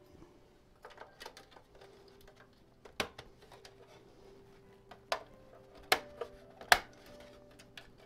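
Thin stamped-metal motherboard I/O shield being pressed and snapped into the rear opening of a steel PC case: a scatter of small metal clicks and several sharp snaps, the loudest about three, five, six and seven seconds in.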